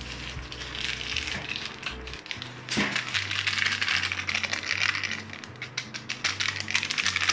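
Background music with a stepping bass line and a busy, ticking beat.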